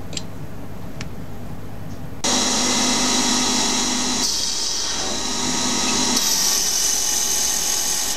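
Hercus PC200 small CNC lathe: a quieter steady hum with a couple of faint clicks, then about two seconds in the spindle comes up to high speed, around 3000 rpm, and runs with a loud steady pitched sound as a carbide insert turns down the spinning brass bar and throws chips. The cutting noise shifts in tone twice partway through.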